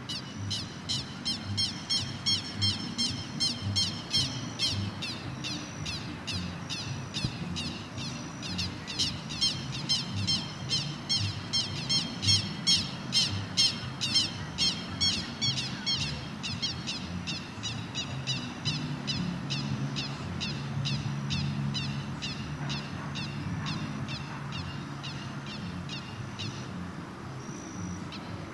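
Birds calling in a long, fast run of harsh chattering notes, many a second, that stops about two seconds before the end, over a low background rumble.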